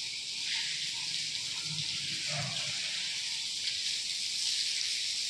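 Water jetting from a hose and splashing across a concrete floor: a steady hiss.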